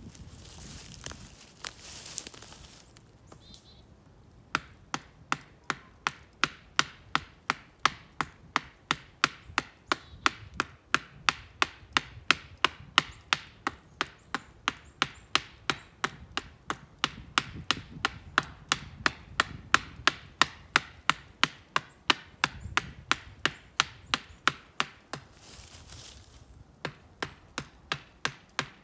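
Hafted stone axe chopping into the base of a small black walnut sapling: a steady run of sharp wooden knocks, about three a second. The knocks begin after a few seconds of rustling and break off briefly near the end before resuming.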